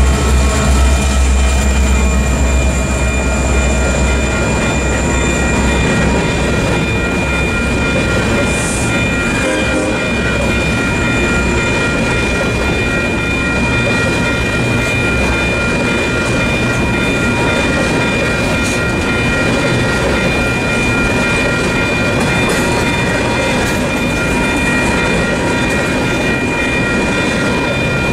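Kansas City Southern freight train passing at speed: the trailing SD70ACe diesel locomotive's low engine rumble fades over the first few seconds, then covered hopper cars roll by with a steady rumble of wheels on rail.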